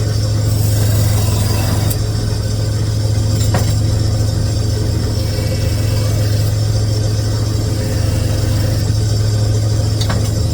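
Steady, loud low motor hum from running machinery, with two brief clicks, one about three and a half seconds in and one near the end.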